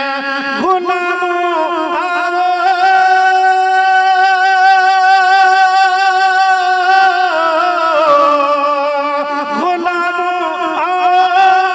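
Man singing an Urdu devotional song (manqabat/naat) solo into a microphone: he holds one long note for several seconds, lets it slide down a little past the middle, then starts a new sung phrase near the end.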